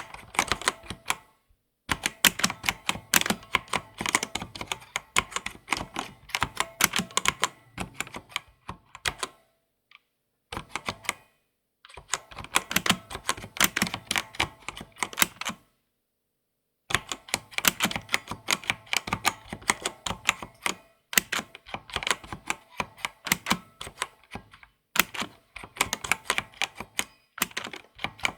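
Typing on a computer keyboard: quick runs of crisp key clicks, broken by several short pauses of about a second.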